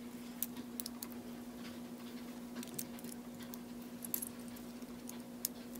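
Plastic Lego pieces clicking and clattering lightly as hands pick through and handle them, a handful of scattered sharp clicks over a faint steady hum.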